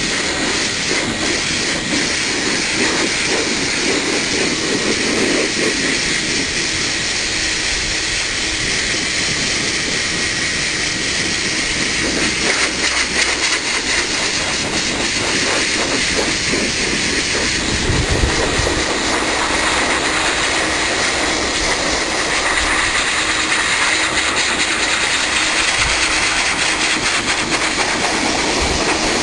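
High-velocity dog dryer (a 'blaster') blowing air with a loud, steady hiss that changes a little in tone now and then.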